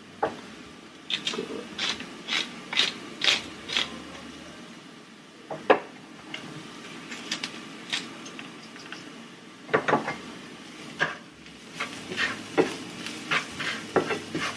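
Kitchen utensils and containers being handled: clinks, knocks and scrapes in several quick clusters of sharp knocks, as ingredients are measured out and added to a pan.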